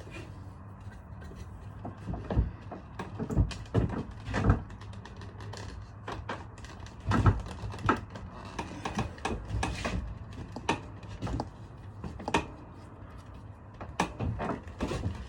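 Irregular knocks and clunks of a metal tire tool and wrench working against a wheelchair wheel while forcing the tire onto the rim, about a dozen hits at uneven spacing.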